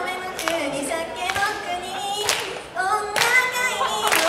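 A high female voice singing a short sing-song phrase, with sharp hand claps about once a second.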